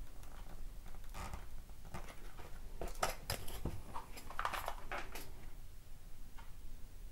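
Foam board strips being handled and pressed down onto a base while a hot glue gun is used: a few short, faint scrapes and rubs, one about a second in and a cluster of them a little later.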